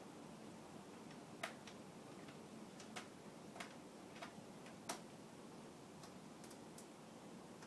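Faint small clicks of a small Phillips screwdriver working screws out of a laptop's screen assembly: about half a dozen sharp ticks at uneven intervals, the loudest about a second and a half and five seconds in.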